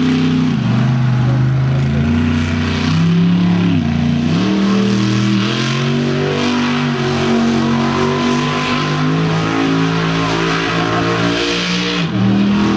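Grave Digger monster truck's engine revving hard, its pitch rising and falling again and again as the truck spins in the dirt. It drops away for a moment near the end, then revs back up.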